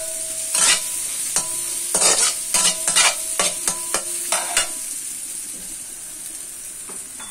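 A spatula scraping and tossing food around a non-stick wok as it sizzles in hot oil, stir-frying until golden. About a dozen quick scraping strokes come in the first five seconds; then the stirring stops and a steady sizzle goes on.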